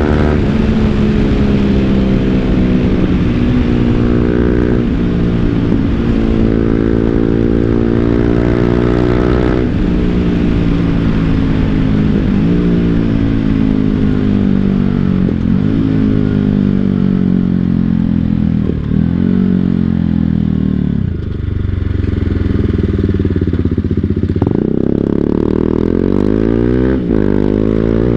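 BMW G 310 GS single-cylinder engine, heard through an Akrapovic full-system exhaust, pulling the bike along. Its pitch climbs and drops back every few seconds as it goes through gear changes. Near the end the pitch jumps up suddenly.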